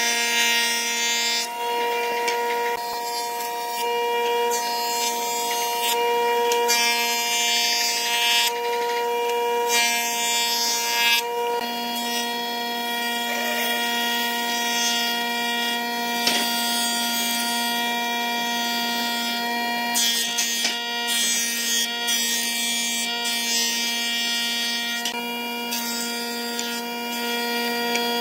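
Jointer-planer running with a steady motor hum, its cutter head shaving a pine board in repeated hissing swells. About twelve seconds in the sound changes as a board goes through the thickness planer.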